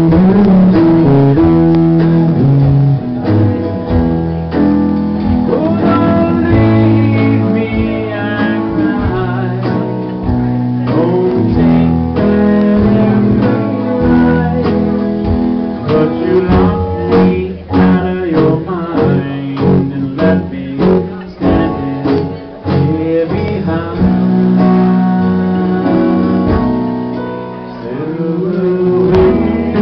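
Live country song: a man singing, accompanying himself on electric guitar.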